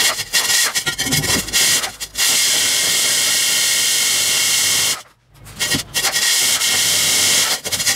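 Drill turning a diamond core bit, grinding through clinker brick. It runs in short bursts at first, then steadily for about three seconds, stops briefly, and grinds on again for about two seconds.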